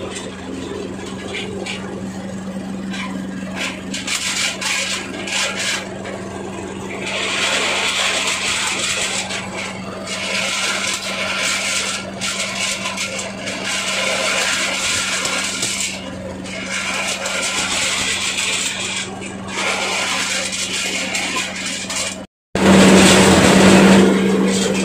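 Areca nut husking machine running, driven by a single-cylinder diesel engine: a steady engine drone under the scraping and rattling of dried nuts being husked in the drum. The sound cuts out briefly near the end, then comes back louder.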